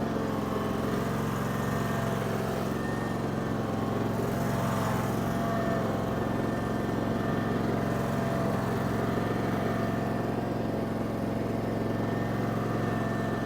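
Barreto 30-SG stump grinder's Briggs & Stratton Vanguard V-twin engine running steadily, with a steady whine over the engine note that wavers briefly about four seconds in. The cutting wheel is not yet engaged.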